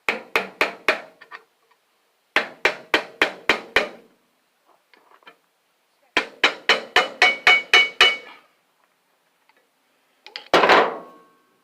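Hammer blows on a scrap electric motor's metal housing, struck to break the casing open: three quick runs of strikes at about four a second, some with a short metallic ring. A longer, heavier clatter comes near the end.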